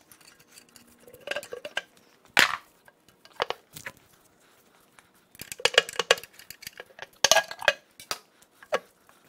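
Irregular sharp metal clanks and clinks of a pry bar working an engine oil pan loose from a Cummins 5.0 L turbo diesel V8 block, the pan held fast by sealant.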